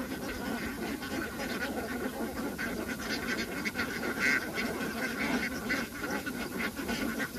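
A large flock of domestic ducks quacking continuously, with many calls overlapping into a steady chatter.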